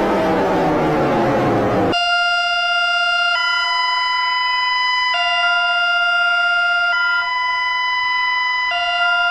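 Electronic emergency alert alarm. First a noisy tone falls in pitch for about two seconds, like a siren winding down. Then a steady buzzing tone alternates between a low and a higher pitch every second and a half to two seconds.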